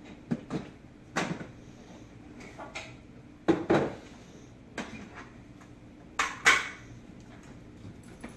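Irregular knocks and clunks of a plastic Keurig coffee maker being handled and moved about, with the two loudest double knocks about halfway through and near the end.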